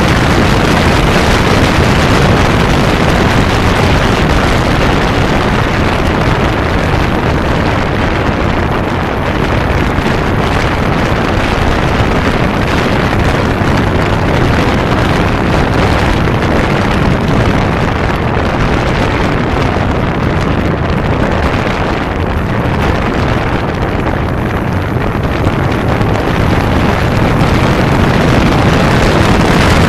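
Wind buffeting a bike-mounted microphone over the running air-cooled inline-four engine of a 1992 Kawasaki Zephyr 550 motorcycle cruising at steady speed; loud and even throughout.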